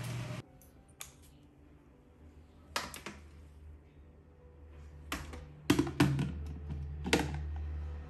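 Hard plastic clicks and knocks as the plastic spin-dry basket of a folding portable washing machine is handled and fitted into the tub onto its shaft, with a cluster of louder knocks a little past the middle. A steady rushing noise cuts off just after the start.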